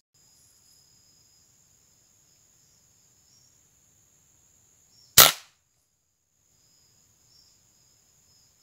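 A single rifle shot, sharp and loud, about five seconds in, fired from a scoped hunting carabina at a bird in the trees. A faint steady high-pitched tone runs underneath.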